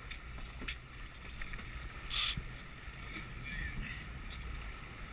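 A boat's engine running steadily under wind and water noise at sea, with a short hiss about two seconds in.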